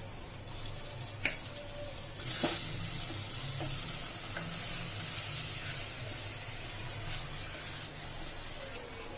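Boneless mutton pieces dropped into hot oil with fried garlic, sizzling hard as they go in about two seconds in, then sizzling steadily while a spatula stirs them in the metal pot with small clicks and scrapes.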